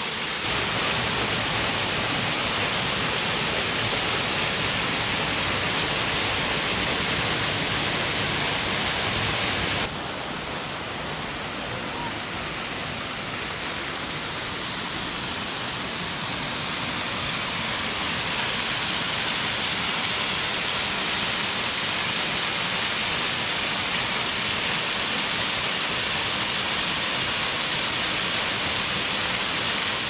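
Waterfall pouring over a rock ledge into a plunge pool: a steady, full rush of falling water. It dips slightly about ten seconds in and slowly builds back.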